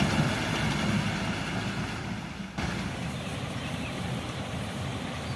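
Heavy construction machinery engine running steadily, with a brief drop in level about two and a half seconds in.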